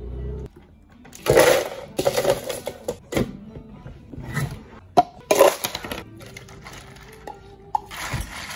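Ice cubes clattering into a plastic blender jar in a few loud bursts, with sharper clinks between.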